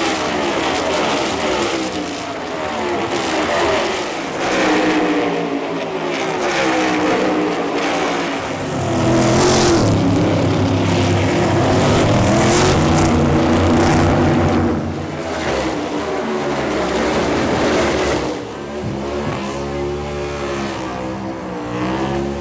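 NASCAR stock cars' V8 engines at race speed, a pack of cars running by with the engine pitch rising and falling as they pass. The sound is loudest from about nine to fifteen seconds in.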